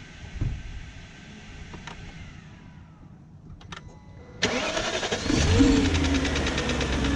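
BMW 740i's 4.4-litre M62 V8 being started: a few light clicks, then the starter cranks about four and a half seconds in, and the engine catches, rises briefly in speed and settles to a steady idle.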